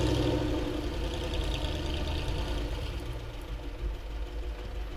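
GAZ-66 'Shishiga' army truck's engine idling steadily, still cold and slow to warm up in the frost; it gets gradually quieter.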